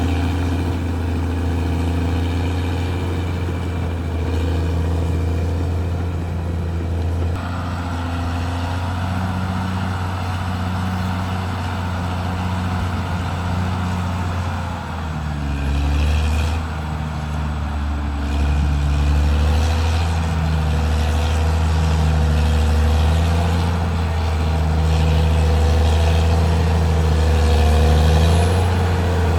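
Caterpillar D6R XL bulldozer's diesel engine running steadily while working. Its note shifts about a quarter of the way in and again about halfway through.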